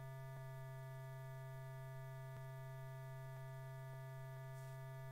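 Steady low electrical hum, like mains hum on the recording, with a couple of faint ticks.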